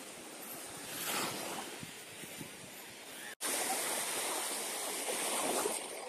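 Black Sea surf breaking and washing on the shore, with a wave swelling about a second in. The sound cuts out for an instant about halfway, then returns louder and steadier.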